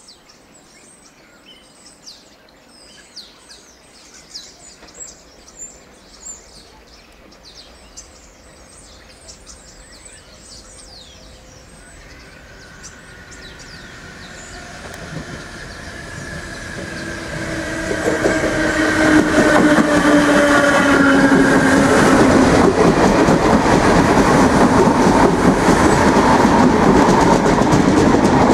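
Birds chirp faintly, then an Irish Rail DART 8100-class electric multiple unit approaches with a whine that falls in pitch as it slows. From about two-thirds of the way in, the train's passing rumble and the clatter of its wheels over the rail joints become loud as it runs by close up.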